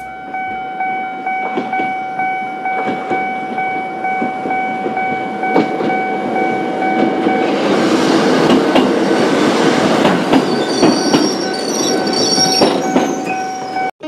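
Level-crossing warning bell ringing in steady pulses while a Choshi Electric Railway train approaches and passes over the crossing. The train grows loud from about halfway, with wheels clattering over rail joints and high-pitched wheel squeals near the end.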